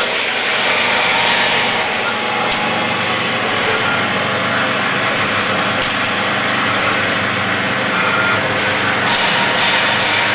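Hualian DXDF-20AX automatic powder packaging machine running steadily, giving off a continuous mechanical noise with a faint high-pitched sound that repeats about every second and a half.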